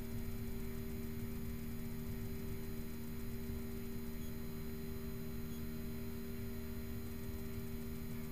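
Steady airliner cabin drone during the climb after take-off: a low engine rumble under a steady two-note hum, unchanging throughout.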